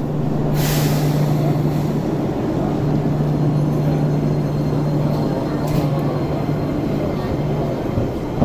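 Enoden 500-series electric train pulling out of a station: a short hiss of air about half a second in as the brakes release, then the steady hum of the train as it moves off. Crowd chatter on the platform underneath.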